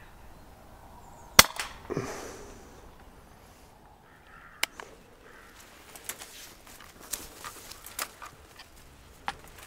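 A Daystate Mk4 pre-charged air rifle fires a single shot about a second and a half in, a short sharp crack, followed half a second later by a noisier burst that fades over about a second. Lighter scattered clicks and knocks follow later.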